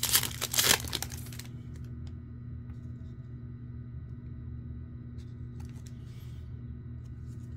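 Trading-card pack wrapper crinkling and tearing open for the first second and a half. After that, only a steady low hum with a few faint clicks.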